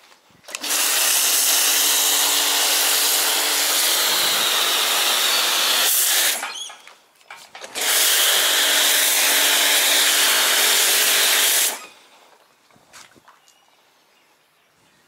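Pressure washer spraying through an MJJC Foam Cannon Pro V2: a loud hiss of foam spray over the steady hum of the washer's motor and pump. It comes in two long bursts of about five and four seconds, each cutting off abruptly when the trigger gun is released.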